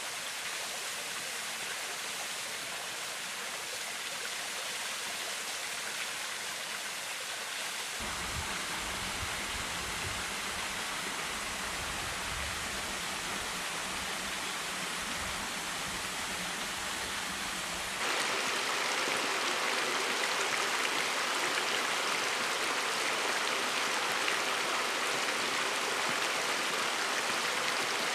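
Thermal spring water running and splashing over rocks and down a small waterfall, a steady rush. The sound changes abruptly about eight seconds in and again about eighteen seconds in, and is louder and brighter after the second change.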